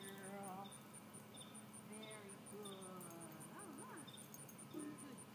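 Faint insect chirping, a high, even chirp repeating about five times a second, like a cricket. Faint whistled calls that rise and fall in pitch come and go over it.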